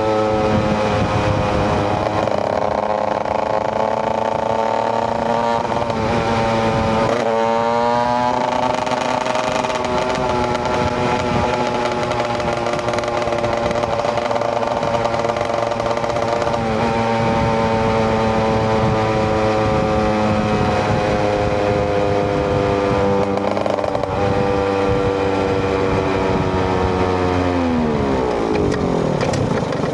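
KTM EXC 125 single-cylinder two-stroke motorcycle engine running under way. Its pitch eases slowly down, jumps up quickly about a quarter of the way in, then eases down again and drops sharply near the end.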